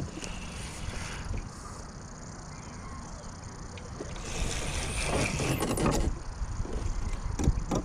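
Steady low rumble of a boat on the water, swelling with a hiss about four seconds in, with a few sharp clicks near the end.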